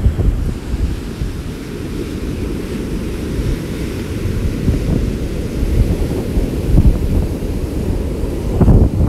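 Heavy storm surf from a hurricane offshore, breaking and washing up the beach, under strong wind buffeting the microphone in gusts.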